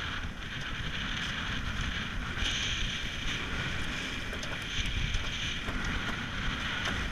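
Wind buffeting the microphone and water rushing along a racing catamaran's hull at speed: a steady low rumble under a hiss, with a few faint clicks.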